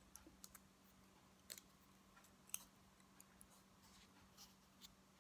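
Faint, scattered small clicks and ticks of nylon fishing line and terminal tackle against a plastic rig winder as a rig is wound onto it, over near silence with a faint steady low hum.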